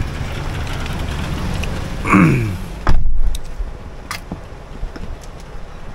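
A car door slams shut with a sharp thud about three seconds in, after which the outside traffic hum is muffled. Just before it there is a short sound falling in pitch.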